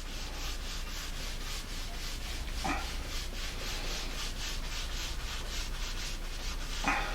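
A wet surface plate being scrubbed by hand with vinegar, in steady rhythmic back-and-forth rubbing strokes as dirt is cleaned off its top.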